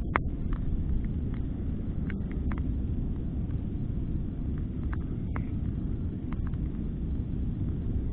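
Low rumble of wind buffeting the microphone, with a few scattered light clicks.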